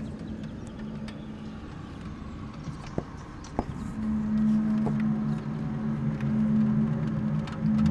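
A low, steady droning hum in two pitches from outside, the unexplained noise recorded as a 'strange sound'. It fades out just after the start and swells back about four seconds in, with a few sharp clicks in between.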